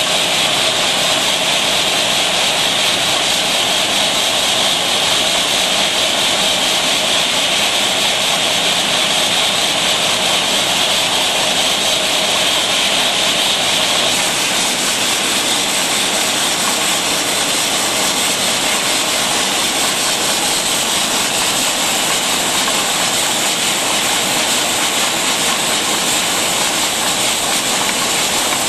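Rotary bottle filling machine running: a steady, dense hiss and whir of machinery that shifts slightly in tone about halfway through.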